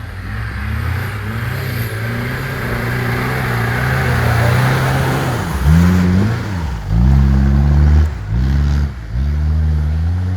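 Suzuki Samurai's engine pulling steadily under a rushing noise, then revved hard four or five times in quick succession in the second half, the pitch swooping up and falling back each time.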